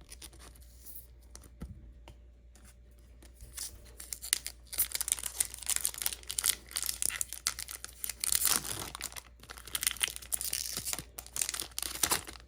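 Foil wrapper of a Pokémon booster pack crinkling and tearing as it is opened, in uneven crackly spells from about four seconds in.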